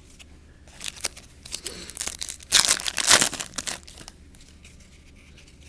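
Foil-wrapped trading card packs crinkling and rustling as they are handled and one is pulled from the box, with cards shuffling; the crinkling is loudest between about two and a half and three and a half seconds in.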